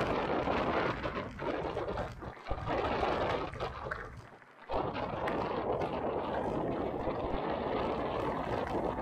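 Mountain bike riding noise: wind rushing over the camera microphone and tyres rolling on the trail, a dense hiss that briefly drops away about four and a half seconds in.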